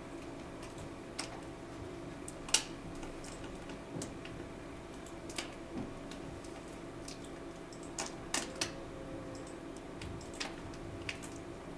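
Scattered clicks of computer keys and mouse buttons, about ten separate strokes with a few close together around two-thirds of the way through, over a steady low hum.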